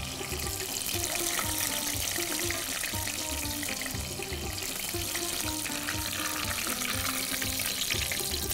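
Deep-frying oil sizzling steadily as fried spinach pastries are lifted out of it with a slotted skimmer, under background music with a regular beat.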